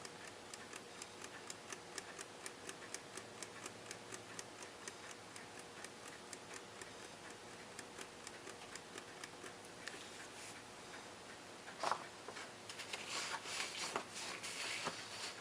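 1948 Westclox Big Ben pin-lever alarm clock movement running on its own, ticking rapidly and evenly, with the balance wheel freshly set in beat. About twelve seconds in, a sharp knock, then a few seconds of rustling handling noise.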